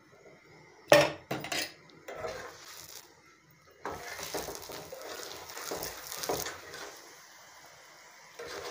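A metal spoon clinks against a tawa griddle a few times about a second in as ghee is spread on a paratha. From about four seconds, the ghee-coated paratha is turned over onto the hot tawa and sizzles with a steady hiss that eases off near the end.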